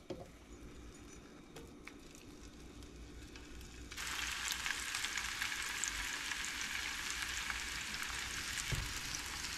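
Diced smoked sausage frying in hot oil in a pan. After a quiet start, the sizzling begins suddenly about four seconds in and then holds steady.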